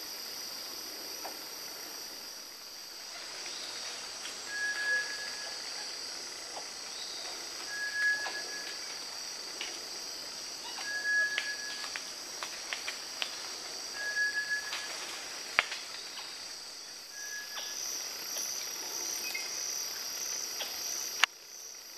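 Forest insect chorus, a steady high-pitched shrilling, with a bird giving a short whistled note about every three seconds, five times. Scattered clicks and a couple of sharper knocks come and go, the loudest near the end.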